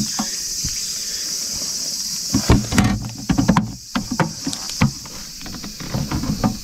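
Steady high chirring of night insects. From about two and a half seconds in, a run of irregular clicks, knocks and rustling from handling and moving about is heard over it.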